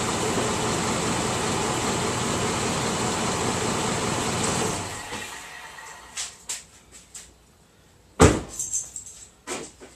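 GM LS2 V8 idling hot, its lifter noise only faint on a Mobil 1 5W30/0W40 oil mix, then shut off about five seconds in and running down within a second. After it stops come a few light clicks and one loud thump around eight seconds.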